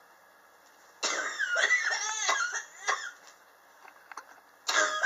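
A person coughing in fits: a quick run of several coughs about a second in, and another run starting near the end. It is a chronic cough that has gone on for years, which the person blames on sharp temperature changes in their apartment.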